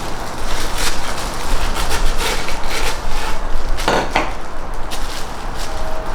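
Loud rubbing and scraping handling noise with scattered knocks, strongest around four seconds in.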